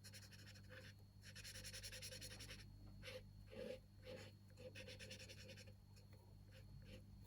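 Faint scratching of colouring on paper, quick back-and-forth strokes in spells of a second or so with short pauses between.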